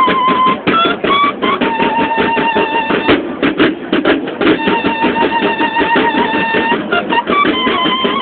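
Banda de guerra playing: bugles sound long held notes, two of them lasting a couple of seconds each with short notes between, over a fast, steady snare-drum rhythm.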